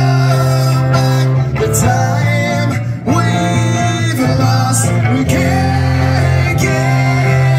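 Live rock band playing loudly, electric guitar to the fore over a steady bass, with a man singing.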